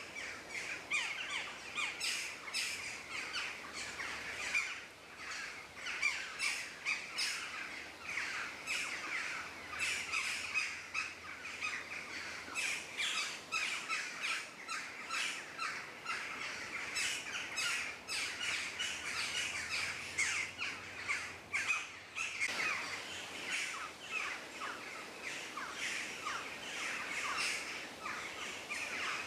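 Forest ambience of many songbirds chirping and calling at once, a dense, continuous chorus of short high-pitched calls.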